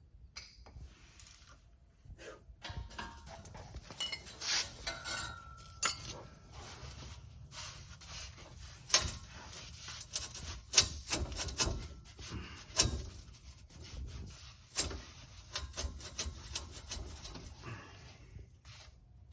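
Hand tools and metal parts clinking, knocking and scraping while an exhaust muffler and its clamps are worked loose: irregular sharp clicks and knocks with rubbing between them.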